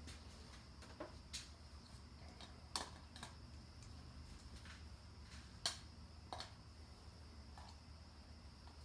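Scattered light clicks and taps of parts being handled, with two sharper clicks about three and six seconds in, over a faint steady low hum.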